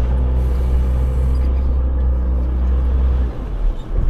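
Car driving along a road: a steady low rumble of engine and road noise, which briefly drops away about three seconds in.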